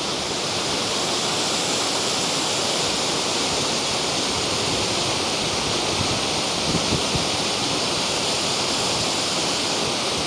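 Waterfall: a steady rush of falling water and splashing into the pool below, flowing after recent rain. A few faint low bumps come about seven seconds in.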